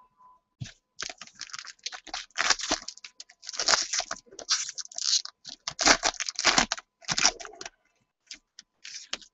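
Crinkly plastic wrapper on a pack of trading cards crackling and rustling in quick bursts as it is torn open and handled, followed by a few light clicks near the end.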